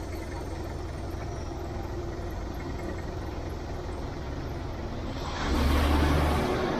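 Steady roadside traffic background, then a motor vehicle passing close by about five and a half seconds in: louder for about a second with a low rumble, then fading.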